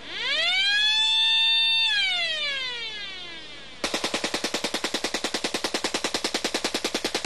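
Rapid-fire gun: a high whine climbs in pitch, holds, then slides down, and about four seconds in a fast, even burst of shots at roughly ten a second runs until the sound cuts off.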